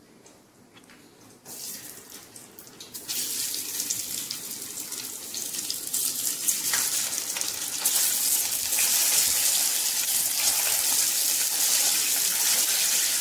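Hot ghee sizzling in a brass pan as cooked, mashed millet and lentil is spooned into it: a steady hiss that starts faint, builds about three seconds in and grows louder from about eight seconds.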